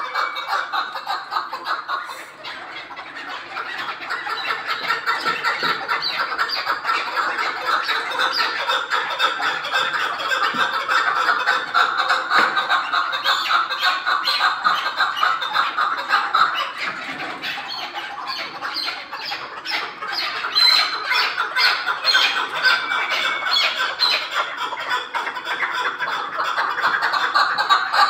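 Chukar partridges calling in a fast, unbroken run of repeated notes, with a short lull about two seconds in.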